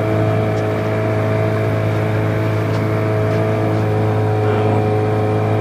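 Small boat's engine running steadily, a constant drone that holds one pitch throughout.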